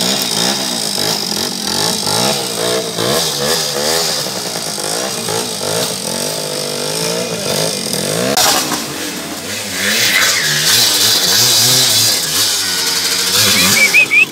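Yamaha trail motorcycle engine revved up and down over and over, about once a second. From about eight seconds in the sound turns louder and noisier, and a short rising whine comes near the end.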